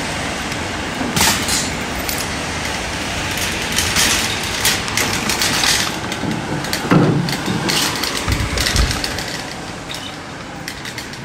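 Metal wire shopping cart rattling and clanking as it is taken from a row of nested carts and pushed along on its casters, with many sharp clanks of the wire frame. The rattle gets quieter near the end.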